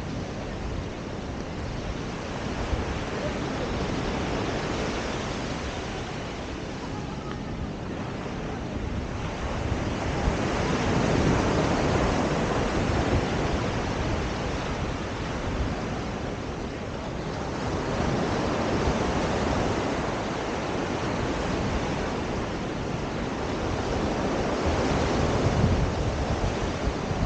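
Ocean surf washing onto a sandy beach: a steady rushing wash that swells and eases every several seconds, with wind buffeting the microphone.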